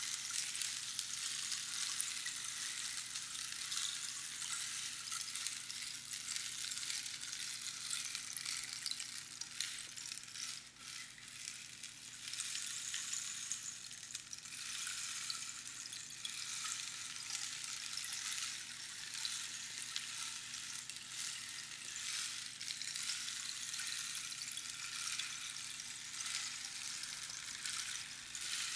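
Rainstick: small pebbles or beans trickling down past the pins inside the tube, a continuous rain-like hiss with fine crackle. It thins briefly about ten seconds in, then swells again.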